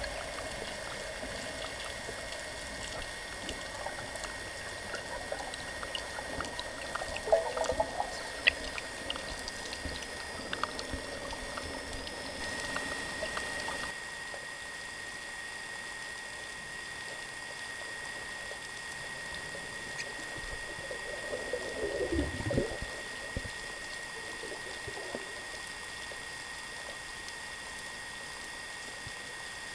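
Underwater ambience during a breath-hold dive: a steady hiss with a thin high whine, scattered small clicks, and two brief watery gurgles, one about eight seconds in and one about twenty-two seconds in.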